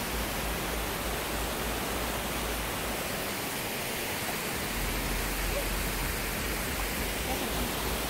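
Steady rush of a waterfall and rocky cascades, an even roar of falling water at a constant level. A low rumble on the microphone drops out briefly in the middle.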